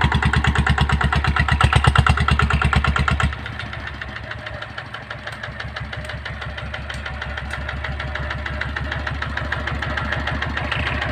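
Yanmar single-cylinder diesel engine on a two-wheel walking tractor, running hard while it tows a loaded cart over ploughed ground. About three seconds in it suddenly drops to a quieter, steady run that slowly builds again.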